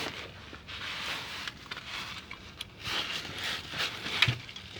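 Socket ratchet being handled and fitted onto the engine's oil drain plug: irregular scraping, rustling and clicks, with one sharp metallic knock about four seconds in.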